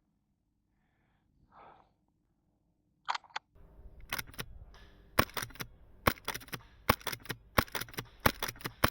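Airsoft gun firing single shots, a run of sharp cracks that mostly come in quick pairs and begin about five seconds in, after a few lighter clicks.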